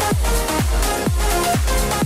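Electronic dance background music with a steady kick drum, about two beats a second.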